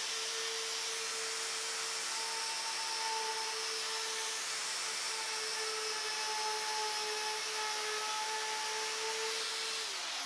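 Makita plunge router running steadily at full speed with a high, even whine as its bit cuts a groove along a wooden workpiece. Near the end it is switched off and the whine drops in pitch as the motor spins down.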